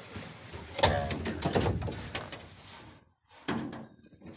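Rustling, scraping and knocking of clothing and body against the sheet-metal inside of a combine harvester as a person squeezes into the tight space, with a short strained vocal sound about a second in. It goes quieter after about three seconds, with one more knock.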